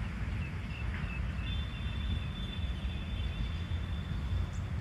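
Outdoor riverside ambience: a steady low rumble, with a few faint chirps in the first second and a thin high whistle that starts about a second and a half in and holds until near the end.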